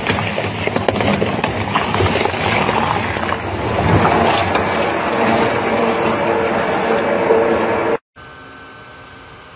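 Industrial twin-shaft shredder's rotating cutter blades crushing and tearing material, a truck tyre at first: dense crunching and grinding with many sharp cracks, a little louder from about four seconds in. About eight seconds in it cuts to a much quieter, steady machine hum of a shredder running empty.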